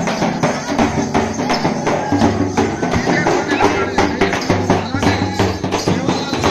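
Large double-headed drums, slung at the side, beaten with a stick and a bare hand in a fast, steady folk rhythm, with a bright jingling percussion on top.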